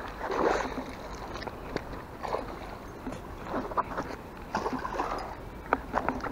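Water splashing and sloshing in irregular bursts as a hooked pike thrashes at the surface while being landed, with a few sharp knocks of handling among them.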